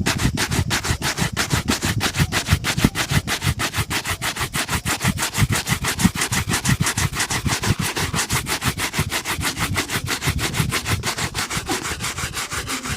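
Fast back-and-forth shoe shining strokes rubbing over a leather shoe, an even rhythm of about seven scratchy strokes a second that stops abruptly at the end.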